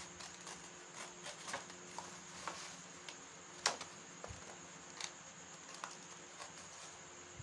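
Scissors snipping through thin cardboard in short, irregular cuts, the sharpest snip about halfway through.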